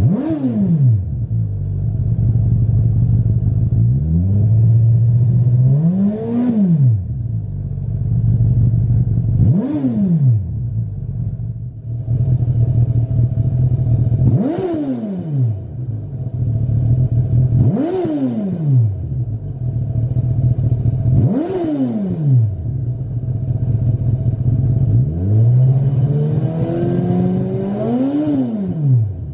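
Suzuki GSX-S1000 inline-four engine idling and revved up and back down, seven times. The first three revs come through the stock exhaust. The last four come through a Lextek GP8C aftermarket silencer: three quick blips, then one longer, slower rev near the end.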